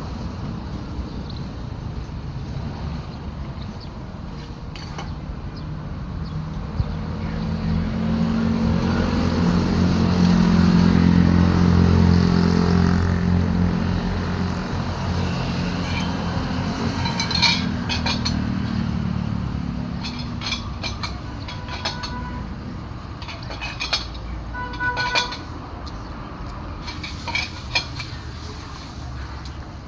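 A motor vehicle's engine grows louder and then fades away over about fifteen seconds as it passes, followed by a run of short, sharp metallic clinks and taps, as of tools being handled on metal.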